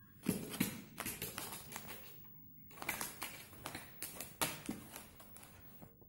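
A cat scrabbling on fabric upholstery: rapid scratchy taps and rustles of claws and paws on cloth, in two bursts with a short pause between them, the second ending about five seconds in.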